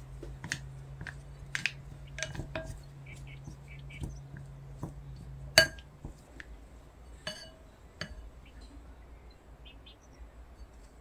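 Wooden spoon stirring melting chocolate in a glass bowl, knocking and clinking against the glass, with the sharpest clink about halfway through. A low steady hum runs under the first half and stops just after that clink.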